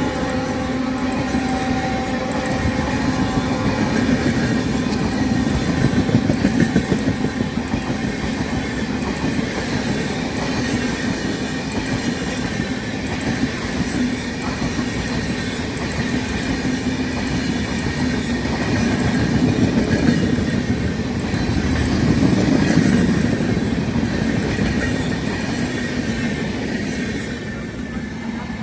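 Express passenger train passing at speed: coaches rumbling and wheels clattering over rail joints. The locomotive's horn tails off over the first few seconds, and the rattle eases near the end.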